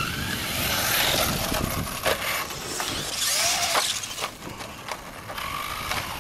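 Brushless electric RC car motors whining as the cars accelerate over dirt jumps, with a rising-and-falling throttle whine a little past the middle. There are several sharp clacks from the cars landing and hitting the dirt.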